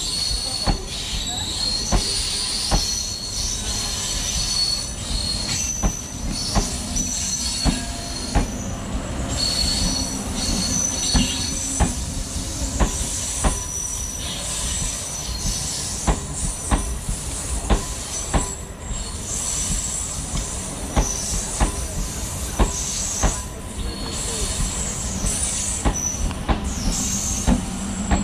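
Electric MEMU train coaches rolling past on the adjacent track: wheels clacking over rail joints in regular pairs over a steady rumble, with a thin high wheel squeal coming and going. A low hum comes up near the end.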